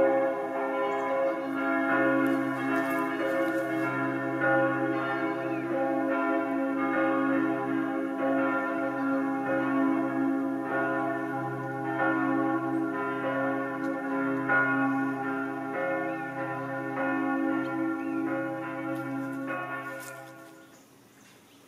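Church bells pealing: several bells struck over and over, their tones ringing on and overlapping, then dying away near the end.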